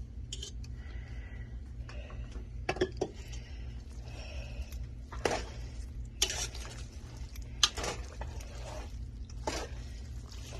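Metal tongs clinking and scraping against a cooking pot as cooked noodles are tossed with teriyaki sauce and vegetables: irregular clinks, a few of them sharper and louder.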